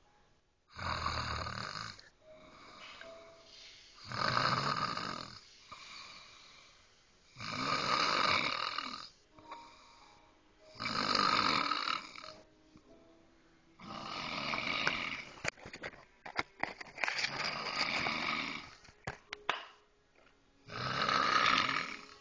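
A woman snoring loudly in her sleep: about seven long, rasping snores, one every three to four seconds, with quieter breathing between them.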